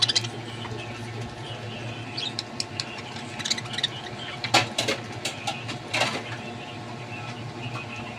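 Budgerigars chirping in short scattered calls over a steady low hum, with two sharp clicks about four and a half and six seconds in.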